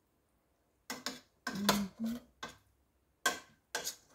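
A spoon knocking and scraping against a stainless steel pot while stirring fish, in a handful of short, irregular strokes starting about a second in.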